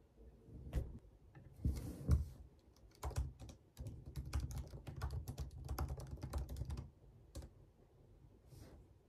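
Typing on a laptop keyboard: a quick run of key clicks from about three seconds in until nearly seven seconds, then a few scattered taps. About two seconds in, before the typing starts, there is a brushing sound with a couple of soft thumps.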